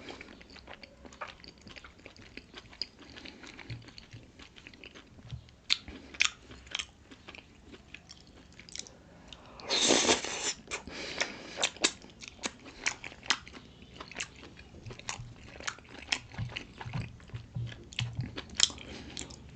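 Close-miked chewing and biting of pork momo dumplings: many short, wet mouth clicks and smacks. A louder half-second burst of noise comes about halfway through.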